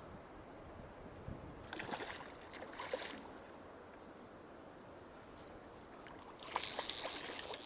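Splashing in river water: two short bursts about two and three seconds in, then a longer, louder spell of splashing near the end, over the low rush of the stream.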